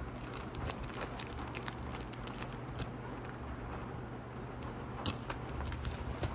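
Packaging being handled: scattered light crackles and clicks of wrapping being rustled, a little louder about five seconds in, over a steady low hum.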